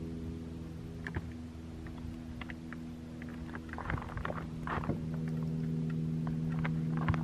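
Footsteps crunching in snow: a few irregular steps, over a steady low hum.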